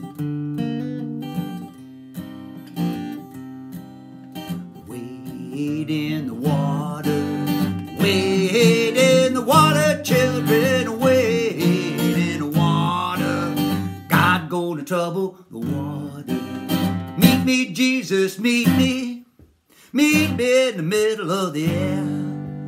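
Steel-string acoustic guitar strummed on its own for the first few seconds, then a man's voice sings over it from about six seconds in. The playing stops for a moment near the end and starts again.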